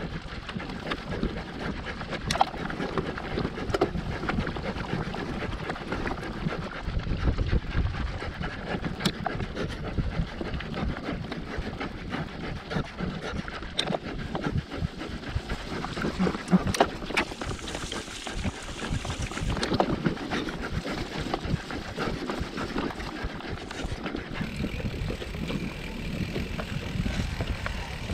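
Wind buffeting the microphone over the rumble and rattle of a mountain bike riding over rough ground, with scattered short knocks and clicks.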